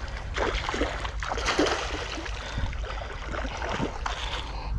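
Shallow seawater splashing and sloshing in short, uneven surges as a hooked giant trevally is brought into the shallows and a person wades beside it, with wind rumbling on the microphone.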